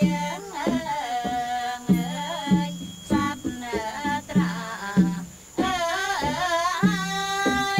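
Traditional Cambodian music accompanying classical Khmer dance. A high, wavering, ornamented melody runs over short repeated low notes and sharp percussion strikes.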